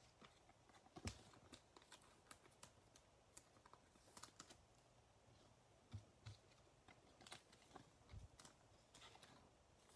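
Faint, irregular clicks and taps of trading cards being handled and set down on a tabletop, over near silence.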